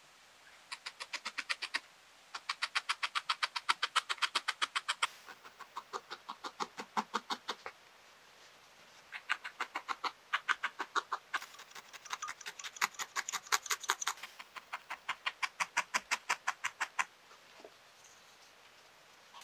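Felting needle stabbing again and again through wool roving into a foam pad, making fast, even ticks about ten a second. The ticks come in runs of two to three seconds with short pauses between.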